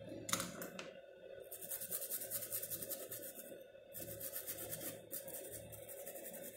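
A stiff bristle brush scrubbing a phone's circuit board in quick back-and-forth strokes, giving a dry, scratchy rasp that stops briefly about halfway through. Two sharp clicks come just before the scrubbing starts.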